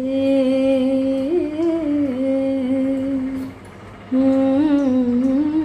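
A woman humming a tune in long held notes, in two phrases with a short break about three and a half seconds in.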